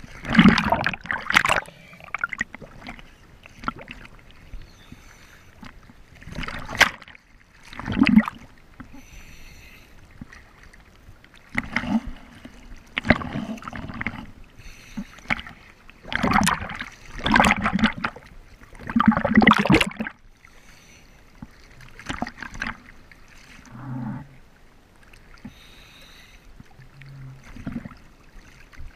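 Sea water sloshing and splashing against a camera held at the surface, in irregular bursts a second or two long, some of them loud, over a steady low wash of the waves.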